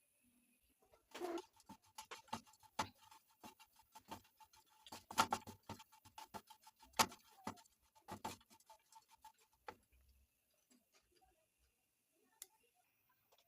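Irregular light knocks and clicks, several a second, as of kitchen utensils being worked, with a faint steady tone behind them; they stop about ten seconds in.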